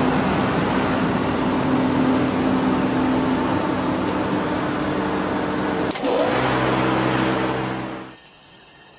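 Daikin chiller running: a loud, steady mechanical hum with several held tones. About six seconds in there is a sharp click and a rush of hiss, and the hum shifts to a lower tone. Just after eight seconds the noise drops away suddenly.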